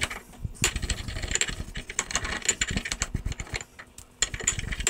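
Medium steel wool scrubbing back and forth over an oiled steel railroad spike, a scratchy rubbing made of many short, irregular strokes, with a brief pause about four seconds in. The spike is being polished as the oil is rubbed in.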